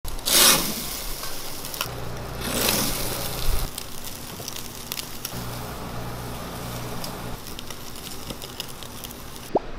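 Chicken dakgalbi sizzling and crackling on a wire grill over live charcoal, with many sharp pops and two loud rushing hisses in the first three seconds. A short rising whistle-like tone sounds near the end.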